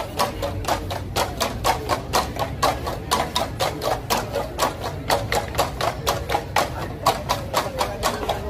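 Bamboo percussion instruments struck in a fast, steady, interlocking rhythm of about five strokes a second, each stroke a short hollow knock with a brief ring.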